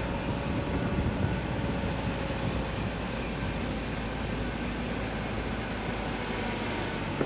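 Steady engine and road noise inside a moving car, with a faint whine that slowly drops in pitch.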